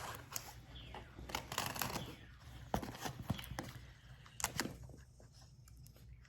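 Packing tape being cut and pulled open on a cardboard package: irregular scratching, crinkling and tearing noises with a few sharp clicks, dying down near the end.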